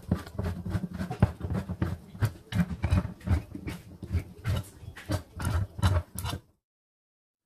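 Handheld can opener cutting around the rim of a can of coconut cream: a rapid, irregular run of clicks and scraping, which cuts off suddenly near the end.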